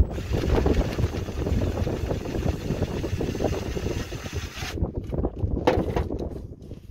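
Milwaukee M18 cordless impact driver hammering away with a 9/16 socket, loosening a power steering pump bracket bolt on the engine; it stops suddenly near the five-second mark, with a short clink a little later.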